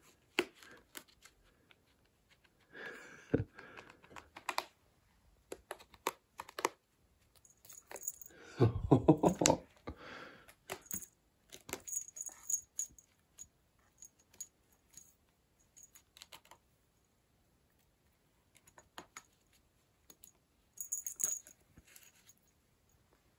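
A cat's claws scratching and catching on a carpet-covered scratching post while it grabs at a ribboned wand toy, giving scattered scratches, rustles and light clicks. A louder, heavier burst of noise lasting about a second comes about nine seconds in.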